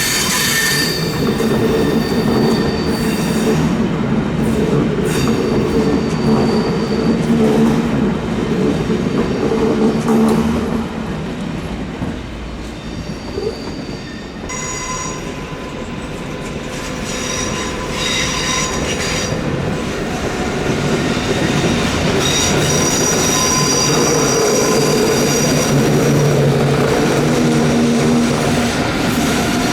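Train wheel flanges squealing through a tight curve in the track, several high shrill tones at once over the rumble of the train rolling on the rails. The train eases off somewhat around the middle, and the squeal returns more strongly for the second half.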